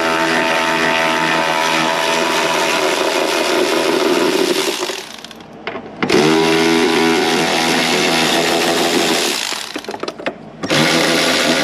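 Cordless power tool spinning 10 mm bolts out of a battery box in three long runs. Its motor spins up to a steady whine each time, with short pauses about 5 seconds in and again near the end.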